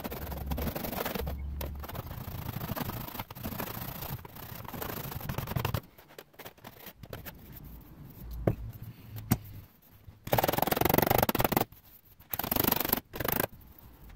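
Hand file rasping along the cut edge of an opening in an aluminium door-skin panel, smoothing the raw edge. Steady scraping for the first several seconds, a quieter spell with two sharp clicks, then two louder strokes of about a second each near the end.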